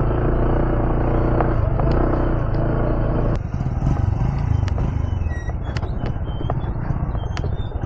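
Honda ADV 160 scooter's single-cylinder engine running steadily while riding over a dirt road. About three seconds in the sound changes abruptly to a rougher rumble with scattered sharp clicks.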